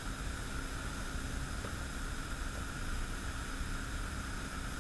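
Steady fizzing hiss of an aluminium drink can dissolving in sodium hydroxide solution, hydrogen bubbles foaming around its base.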